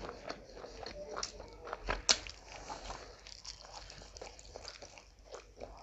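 Close-miked eating sounds of rice and curry eaten by hand: wet chewing and lip smacks as a run of irregular small clicks, with one sharp click about two seconds in.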